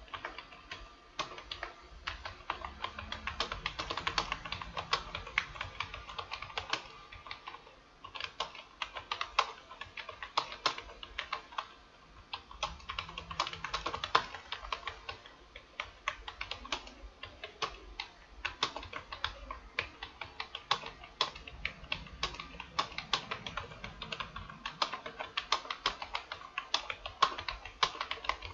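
Fast, continuous typing on a computer keyboard: a rapid, uneven stream of keystroke clicks with brief pauses, touch-typing in a timed test at about 59 words a minute.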